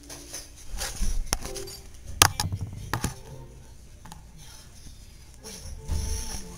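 Handling noise from a handheld camera being moved about: rubbing and bumps on the microphone with several sharp clicks, the loudest a little over two seconds in.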